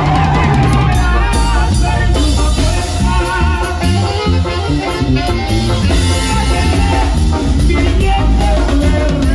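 Background music with a steady bass and beat, an upbeat Latin-style song.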